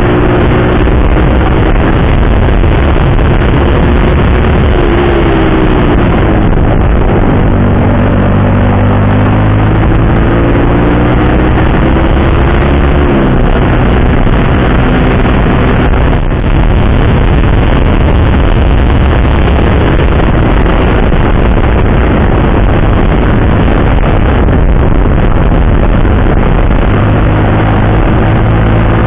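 Yamaha R15 sport motorcycle's single-cylinder engine running on the road, under heavy wind noise on the camera microphone. The engine note climbs slowly and falls back sharply twice, about 5 and 13 seconds in.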